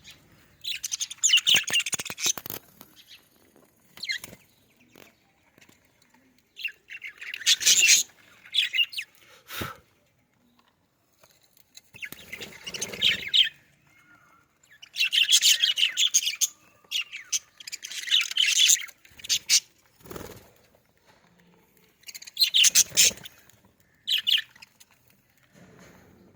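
Budgerigars chirping in about seven bursts of busy, high chatter, with quiet gaps of a second or more between them.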